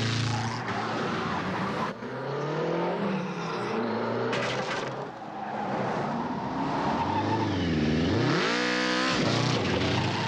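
Motorcycle engine revving hard, its pitch climbing and dropping over and over, with abrupt jumps in the sound about two seconds in and again near the middle.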